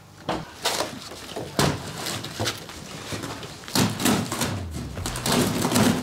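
A series of irregular knocks and rustles, the sounds of things being handled, several in quick succession near the middle and again near the end.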